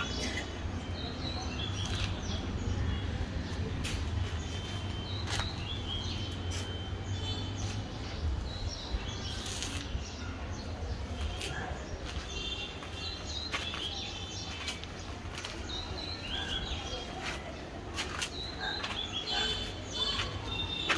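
Small birds chirping in short repeated calls over a steady low hum, with scattered sharp taps or knocks.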